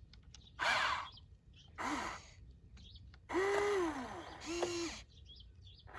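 Small electric motors of a radio-controlled construction model whirring in four short bursts, each whine rising and falling in pitch as the motor spins up and winds down; the third burst lasts about a second.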